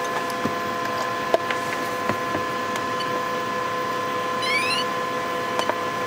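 Steady electrical hum and hiss with a few constant whining tones, with small clicks and taps of parts being handled on the bench. A short rising electronic chirp comes about four and a half seconds in.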